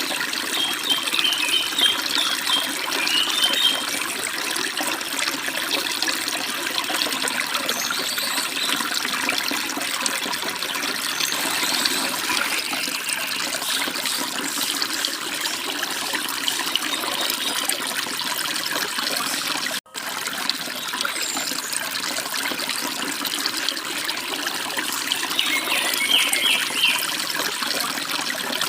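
Forest stream and small waterfall flowing steadily, with a few birds chirping briefly near the start and again near the end. The sound cuts out for an instant about two-thirds of the way through.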